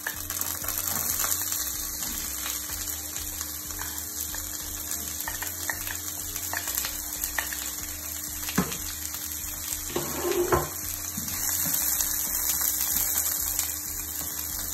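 Hot oil in a frying pan sizzling steadily as sliced onions are scraped in from a bowl and stirred, with a few sharp knocks of the spoon against the pan and bowl about halfway through.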